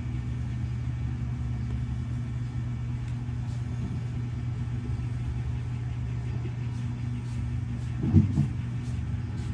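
A steady low motor hum with no change in pitch, and a brief louder sound about eight seconds in.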